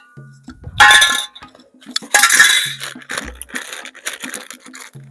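Clinking and clatter of utensils against a cooking pot as ingredients go in: a sharp clatter about a second in, a longer rattle about two seconds in, then a run of lighter clinks.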